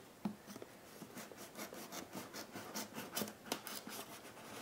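Folding knife blade slicing through the factory seal on a cardboard box: a quick, irregular run of short, quiet scratching strokes, thickest from about a second in.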